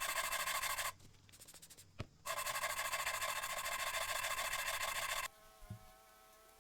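Steel chisel held against a spinning power abrasive wheel, grinding with a harsh, fast rasp in two spells, the second about three seconds long. Between and after them the machine runs freely with a steady whine.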